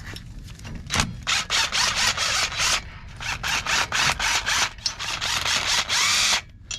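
Hand ratchet wrench clicking in quick, even strokes, about four or five a second, in two runs with a short pause between, loosening the bolts that hold a truck's front wheel hub. A single knock sounds about a second in.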